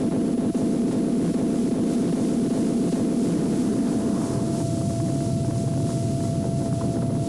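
Gatling-gun strafing pass on a tank: a loud, steady roar of 30 mm cannon fire and shells bursting on the target, with a constant whine over it. It starts and stops abruptly.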